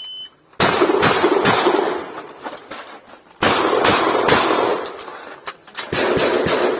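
An electronic shot-timer start beep, then a competition shotgun firing shots in quick groups of about three or four, with pauses between the groups.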